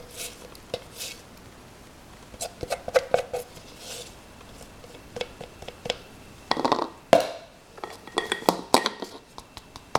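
A kitchen utensil clinking and scraping against a bowl and a metal cream-whipper canister as cake batter is transferred into it. The sound is an irregular series of light clicks and knocks, with a longer scrape about six and a half seconds in.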